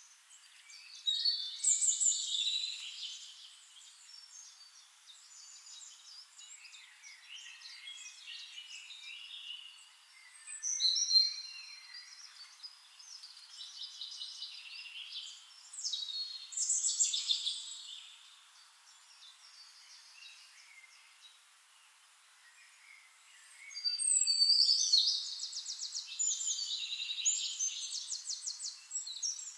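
Forest birds singing and chirping: several loud phrases of song come and go, the longest near the end, with quieter calls in between.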